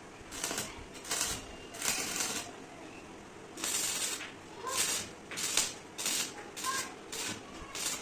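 Stick (arc) welding on steel sheet and angle iron: the electrode's arc crackles and sputters in about ten short bursts, each a short weld with brief pauses between.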